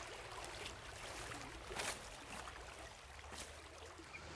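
Faint, steady rush of a small river flowing, with three brief soft ticks.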